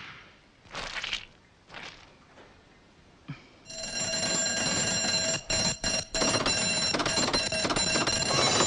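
A steady ringing alarm, like an electric bell, starts about halfway in and keeps going for about five seconds, with a few brief gaps. A couple of short soft rustles come before it.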